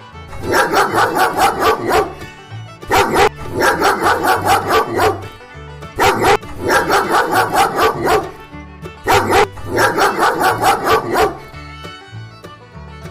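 Duck quacking in four runs of rapid quacks, over light country-style background music.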